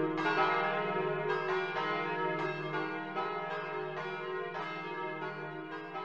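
Church bells pealing, with several overlapping strikes a second. The peal fades gradually toward the end.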